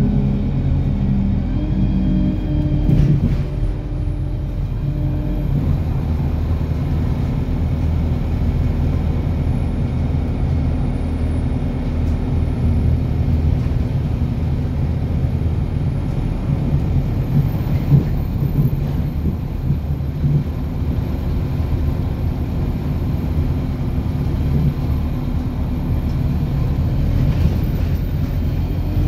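A car driving steadily along a road, with a continuous low rumble of tyres and engine.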